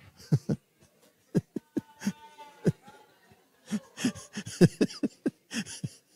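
People laughing in short, choppy chuckles, sparse at first and growing denser and louder about four seconds in.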